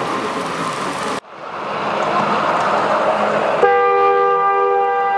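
Hall crowd murmur, then a ride-on miniature Shinkansen train running on its track. About three and a half seconds in, a steady two-tone horn starts sounding and holds.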